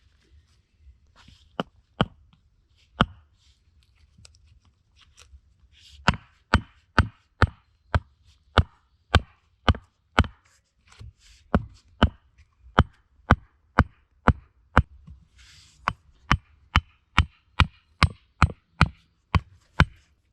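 Wood being chopped: sharp, loud strikes, a few spaced ones at first, then a steady run of about two a second with one short pause.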